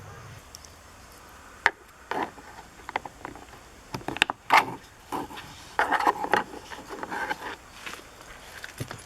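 Irregular clicks, knocks and short rattling clatters of parts being handled, coming thickest in the middle of the stretch.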